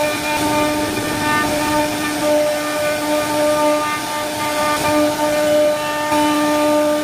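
CNC wood router running, a steady tone over the rough noise of the bit cutting flutes into wood, its strength wavering slightly as it cuts.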